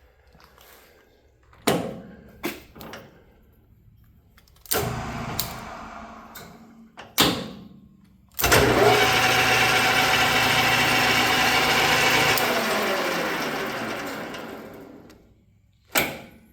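A few sharp knocks, then the Bolton 12 x 23 metal lathe's 1 hp single-phase motor is switched on and runs the spindle steadily for about four seconds. It is switched off and spins down, fading slowly to a stop over about three seconds.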